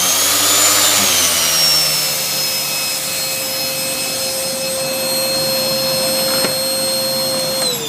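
850 W Hoover Vortex vacuum cleaner running, a really loud whine over rushing air, its pitch wavering for the first couple of seconds and then holding steady. Near the end it is switched off and the whine falls away as the motor winds down.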